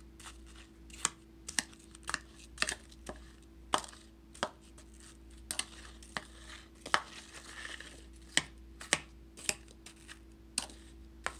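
A metal spoon stirring apple wedges in a bowl, clinking and knocking against the bowl in an irregular run of sharp clicks, about one or two a second, with soft scraping between them.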